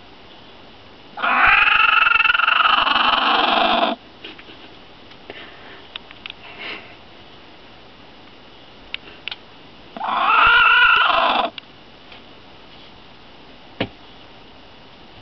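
Hen making a weird, harsh, drawn-out call twice: a long one of about three seconds, then a shorter one of about a second and a half. The owner calls it the 'raccoon noise'. A few faint ticks fall in between.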